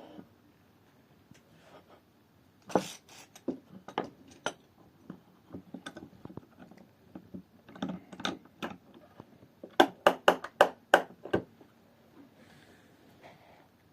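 Wooden pieces clicking and knocking together as a handmade wooden mechanism is worked by hand, with a quick run of about seven sharp knocks about ten seconds in.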